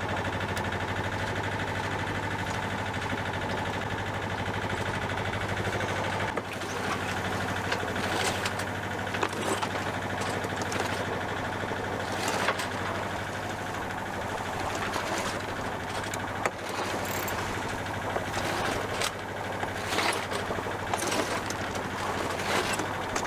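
Sailboat's engine running steadily while the mainsail is hoisted by hand. From about eight seconds in, the sail flaps and rustles in short, irregular spells as it goes up into the wind.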